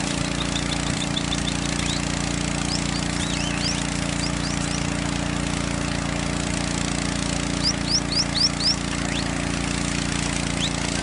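A small engine-driven pump running steadily, feeding the hissing water spray of a cattle spray race. Runs of short, high, rising chirps cut through it, the loudest a quick series of about five about eight seconds in.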